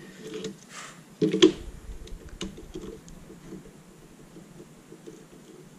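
Light handling sounds of a plastic LCD backlight frame and its thin wires being moved on a rubber work mat: scattered soft clicks and rustles, with one sharper knock a little over a second in.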